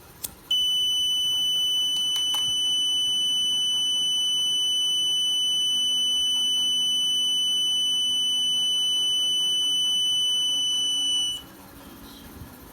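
Small 5 V buzzer on a thermistor and LM358 fire-alarm breadboard circuit giving one steady high-pitched tone for about eleven seconds, then cutting off suddenly: the alarm circuit going off under test. A click comes just before the tone starts.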